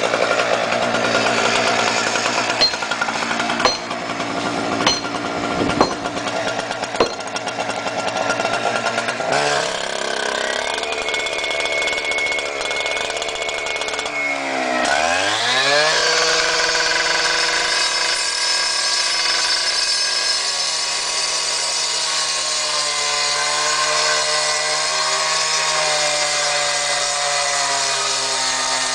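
Two-stroke gas-powered cut-off saw (K-saw) running, with a few sharp knocks in the first several seconds. Its engine revs up about 10 s in, then climbs steeply to full throttle about 15 s in and holds a steady high whine as the blade cuts into the concrete-block wall, the pitch sagging slightly under load about two-thirds of the way through.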